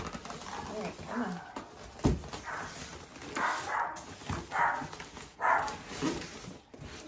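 A dog barking in short bursts about once a second. A single sharp knock about two seconds in, as the cardboard shipping box is handled.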